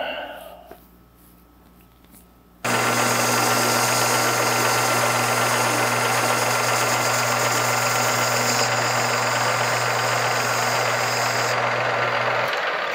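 Metal lathe running under power, turning down a steel axle flange. A steady motor hum sits under an even cutting noise. It starts abruptly about three seconds in, and the hum drops out near the end.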